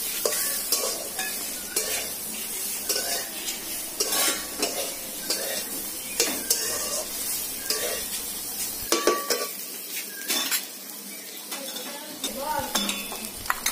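A metal spatula scraping and clinking against an aluminium kadai in repeated, irregular strokes as amla pieces coated in spice paste are stirred and fried, over a steady sizzle of hot oil.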